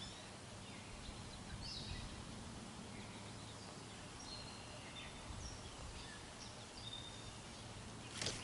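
Faint outdoor ambience with a low steady hum and a few short, high songbird chirps scattered throughout.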